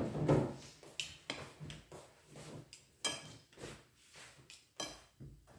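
Metal spoon scraping and clinking against a glass bowl while stirring a mayonnaise-dressed diced vegetable salad (macédoine), in short irregular strokes.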